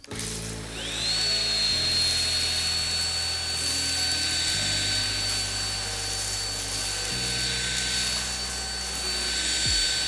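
LG CordZero A9 cordless stick vacuum with its combination brush head starting up about a second in. Its motor whine rises in pitch and then holds steady and high as it runs over crushed cereal on a hardwood floor. Background music plays underneath.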